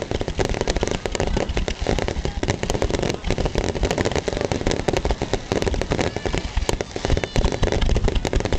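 Fireworks finale: a dense, continuous barrage of shell bursts and crackling, many bangs a second with no let-up.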